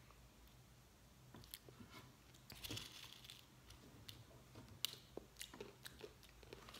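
Faint crinkling and crackling of a small plastic snack packet being handled by hand, with scattered light clicks.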